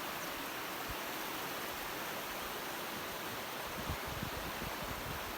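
Creek water rushing over rocks: a steady, even hiss. A few low thumps come in near the end.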